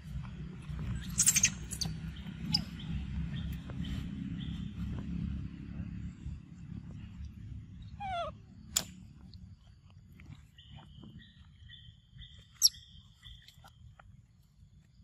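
Short, high squeaks and calls from a group of macaques: a sharp chirp about a second in, a squeal falling in pitch later, and a sharp high cry near the end. A low rumble fades out over the first half.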